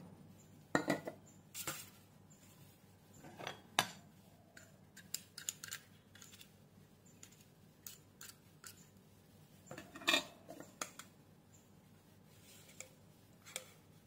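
A metal spoon scraping and knocking against a plastic blender jar and its blade assembly, clearing out sticky ground-pork paste. It makes irregular clicks and scrapes, with a few louder knocks.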